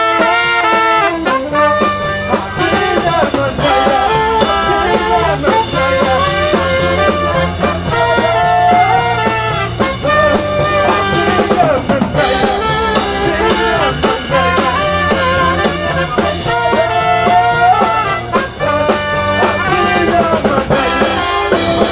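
Brass band of trumpets, trombones and saxophone playing a lively tune over a steady drum beat.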